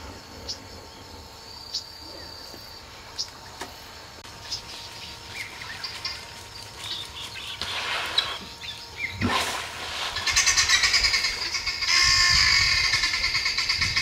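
Wild animal sounds at a river: scattered short bird chirps over a faint steady insect hum, then from about ten seconds in a much louder, fast-pulsing call.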